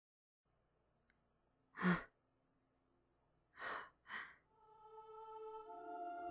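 A sharp, breathy gasp about two seconds in, then two quick breaths in and out, voiced by the dub's actor. Music with held notes fades in and grows near the end.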